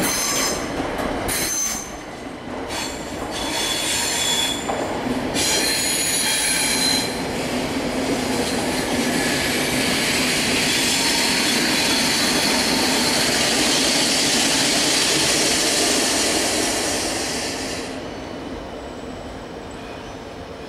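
RegioJet passenger coaches, hauled by a class 1142 electric locomotive, rolling slowly through the station trackwork. Their wheels squeal in several high tones over the first seven seconds. A steady rolling hiss follows and falls away sharply about eighteen seconds in.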